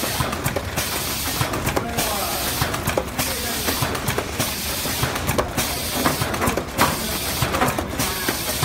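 Carton glue sealing and packaging machine running: a steady mechanical din with frequent, irregular clicks and knocks.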